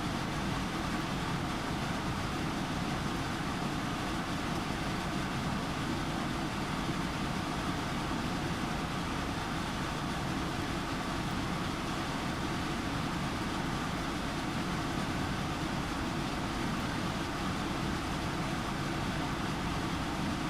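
Electric fan running: a steady, even rushing noise with no breaks.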